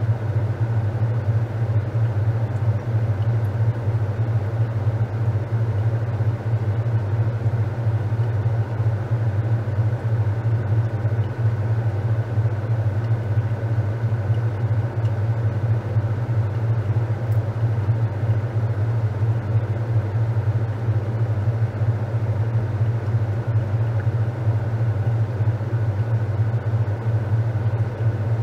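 Top-loading washing machine running with a steady, unchanging low hum.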